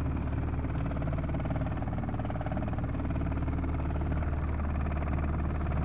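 2003 Dodge Ram 2500's 5.9 Cummins diesel engine running rough and misfiring, a steady low running sound with a rapid uneven pulse. The misfire persists although the injectors tested good.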